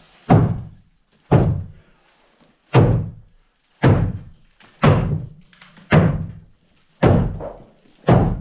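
Heavy thuds of blows on wooden timber, eight in a row about a second apart, each with a short ringing tail.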